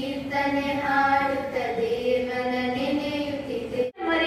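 A group of girls singing a prayer song together into stage microphones, with long held notes that step slowly in pitch. It cuts off abruptly just before the end.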